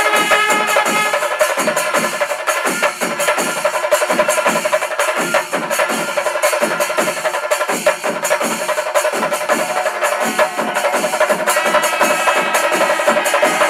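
Pandi melam ensemble playing its kalasham, the climactic final section: massed chenda drums beat a steady driving rhythm over ringing ilathalam cymbals, while kombu horns sound long held notes.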